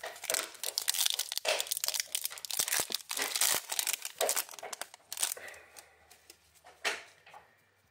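Foil wrapper of an Upper Deck MVP hockey card pack being torn open and crinkled by hand. The crackling is dense for about the first five seconds, then gives way to fainter handling as the cards are slid out, with one sharp click near the end.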